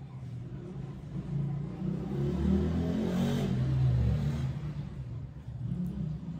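A low motor-vehicle engine rumble that swells to a peak about halfway through and then fades, like a vehicle going past.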